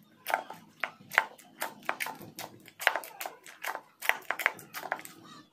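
Slime being kneaded and squeezed by hand in a glass bowl, squelching with irregular wet clicks and pops, several a second, as trapped air is pressed out.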